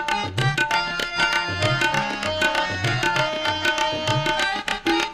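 Instrumental interlude of Sikh kirtan: tabla playing a fast run of strokes, the bass drum sliding up in pitch again and again, over steady held melody notes.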